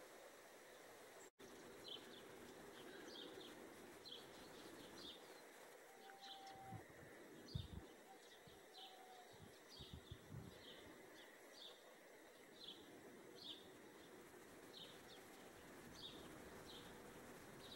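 Faint, repeated high chirps of a small bird, about two a second, over quiet outdoor ambience, with a few soft low bumps about halfway through.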